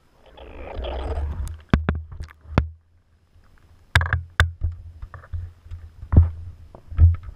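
A GoPro camera in its underwater housing being pulled up out of the lake water, with about a second of rushing, splashing water. Then a series of sharp knocks and bumps as the housing is handled and set down in the boat, over a low rumble.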